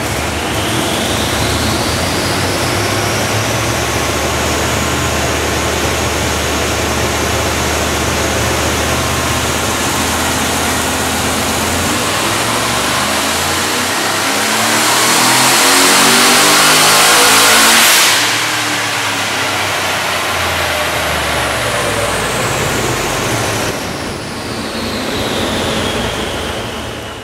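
Twin-turbo 427 cubic-inch LSX V8 running on a chassis dyno through dyno mufflers. It holds a steady speed for about twelve seconds, then makes a full pull with the pitch climbing for about six seconds to its loudest, cuts off sharply when the throttle is lifted, and winds back down.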